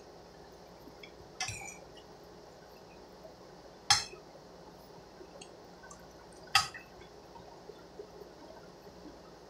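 Metal utensil clinking against a stainless steel cooking pot three times: a lighter clink about a second and a half in, then two sharp, ringing ones at about four and six and a half seconds.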